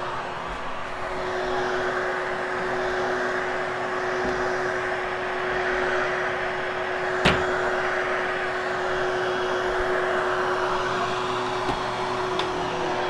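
Hoover HushTone upright vacuum running steadily as it is pushed over carpet, a constant motor hum under a rushing airflow hiss that swells gently. A single sharp click about seven seconds in.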